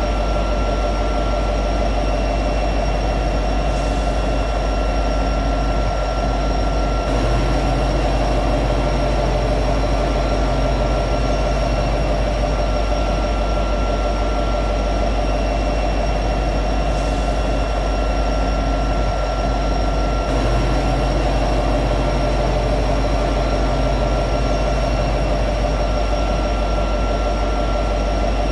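EMD SD70ACE diesel-electric locomotive at high idle, its 16-cylinder EMD 710 two-stroke prime mover running steadily. The tone shifts slightly about seven seconds in and again about twenty seconds in.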